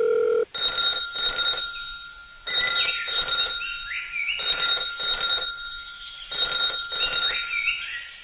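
Telephone ringing in a double-ring pattern: four pairs of rings, a pair about every two seconds. A steady tone sounds for the first half second before the ringing starts.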